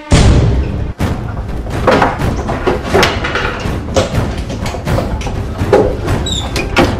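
Loud harsh noise with irregular knocks and thumps, cutting in suddenly and cutting off suddenly about seven seconds later.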